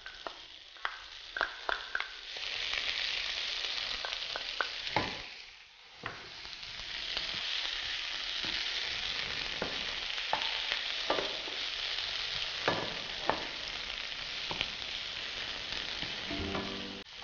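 Chopped Swiss chard leaves sizzling with softened onion in a frying pan as they are stirred with a wooden spoon, which knocks against the pan now and then. The sizzle builds about two seconds in, drops away briefly around the middle, then carries on steadily.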